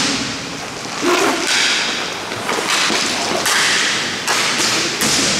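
Hockey play: skates scraping in sharp hissing strokes, about five in a few seconds, each starting suddenly and fading out, among thuds.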